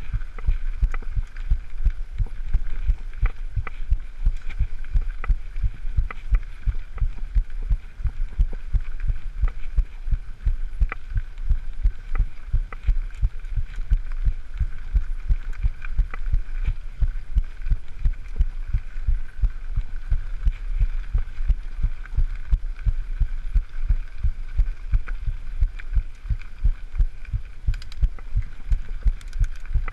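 Mountain bike riding noise picked up by a chest-mounted action camera on a dirt-trail climb: dull low thumps, about two to three a second, over a steady rumble.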